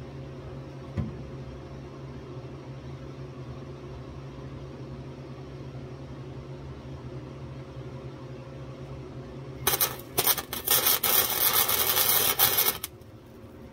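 Wire-feed welder arc crackling on the car's sheet-steel floor pan: a few short stuttering starts, then a steady sizzling bead for about three seconds that stops abruptly near the end. A steady low hum runs underneath.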